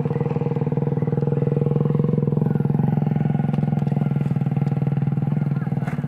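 Humming bow of a large Pariaman layang danguang kite vibrating in the wind: a loud, steady low drone with a fast pulsing flutter.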